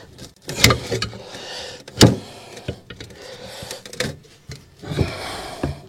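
Tyre irons levering a scooter tyre's second bead over the rim by hand: rubbing and scraping of rubber on the rim, with several sharp clacks of the irons, the loudest about two seconds in.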